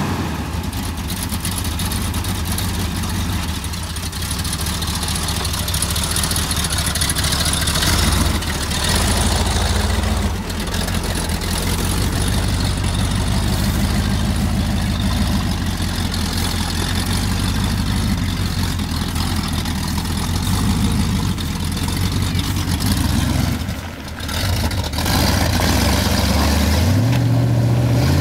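An early Ford Bronco's engine running steadily near idle, then revving up in rising pulls near the end as the truck pushes down into a deep mud rut.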